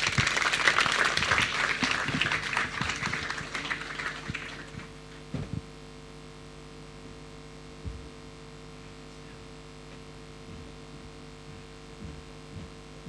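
An audience applauds, fading out after about four and a half seconds. After that there is only a steady electrical hum with a few faint knocks.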